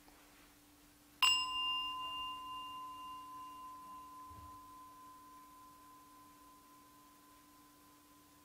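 A small meditation bell or singing bowl struck once about a second in, ringing with a clear high tone that fades slowly over several seconds.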